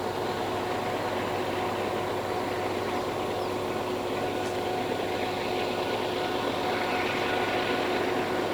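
Diesel-electric freight locomotives working at full throttle (notch 8) to haul a loaded train up a steep grade: a steady, loud engine noise with a steady whine over it, growing slightly louder near the end.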